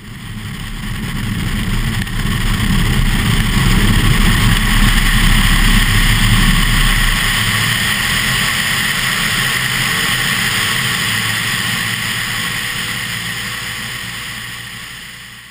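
Wind rush and engine drone of a Cessna 172RG Cutlass in flight, heard from a camera mounted on its tail, with a heavy low buffeting rumble that eases off in the second half. The sound fades in at the start and fades out near the end.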